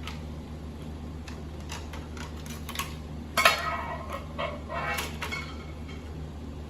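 Parts of a disassembled VCR being handled: scattered small clicks, then a rattling clatter of metal and plastic pieces with a brief ring from about halfway through.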